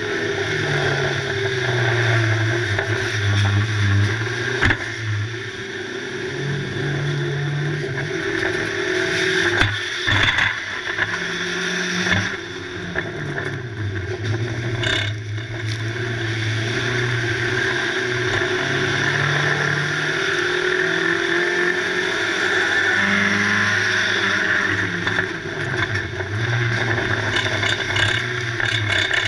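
The engine of a 1600-class banger racing car revving up and down under hard driving, heard from inside its stripped cabin. A few sharp knocks and clatters come along the way.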